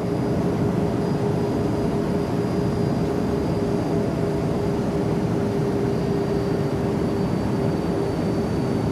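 Steady jet engine noise in flight: an even, constant rush with a steady hum running through it, as heard from an airliner seat beside the engine.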